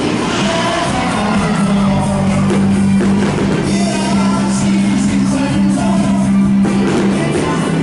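Band music with a singer, amplified, with a long steady low note under the melody.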